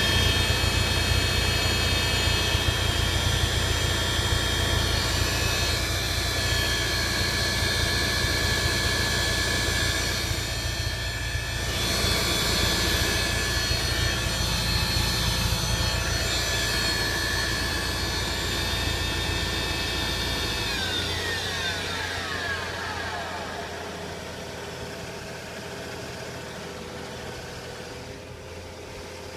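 Car engine after a morning cold start, running with a loud noise made of many steady whining tones over a deep rumble. About two-thirds of the way through the rumble drops out, and the whine slides down in pitch and fades as the noise settles back to normal.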